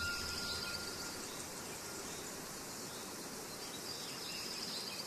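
The ring of a single ding fading out over the first second or so, followed by a faint, steady hiss.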